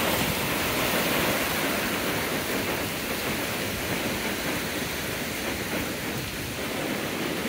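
Ocean surf washing in over beach rocks: a steady rushing hiss that eases slightly over the seconds.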